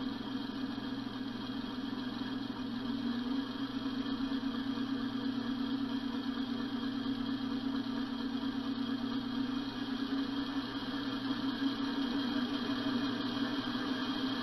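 Homemade four-cylinder compressed-air engine with push-pull valves running steadily on compressed air, a continuous drone over a hiss.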